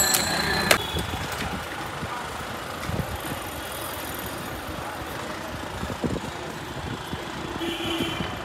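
Steady street traffic noise heard from a moving cycle rickshaw, with a high beeping tone for about the first second.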